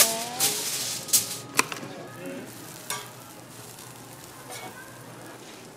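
Aluminium foil pulled and torn from its roll with a loud rustle, a few sharp clicks, then the steady sizzle of a cabbage-and-egg omelette frying on a flat griddle.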